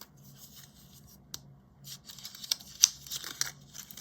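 Wrapping being pulled off a small pan of watercolour paint by hand: soft crinkling and tearing of the wrap with a pause in the middle, then more rustling with a few sharp snaps in the second half.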